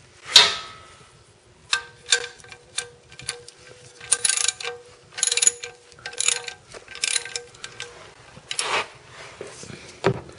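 Ratchet wrench with a 14 mm socket clicking in repeated short runs as it spins the oil drain bolt back into the oil pan. There is one sharp metallic clink about half a second in.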